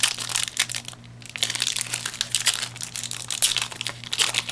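Foil wrapper of a Yu-Gi-Oh! booster pack crinkling as it is opened and handled: a rapid, dense crackle with a short lull about a second in.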